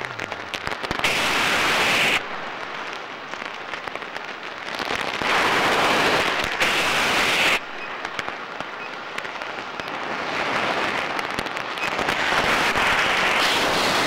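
Scuba diver's breathing heard underwater: exhaled bubbles rush out of the regulator in three loud bursts, about a second in, around five seconds in and near the end, each stopping abruptly. A fizzing crackle fills the gaps between them.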